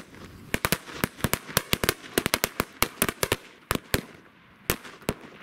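Firecrackers going off in a rapid, uneven string of about twenty sharp bangs, then a few last scattered bangs near the end.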